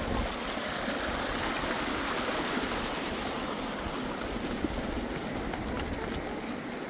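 Water flowing steadily, a continuous rushing of a stream.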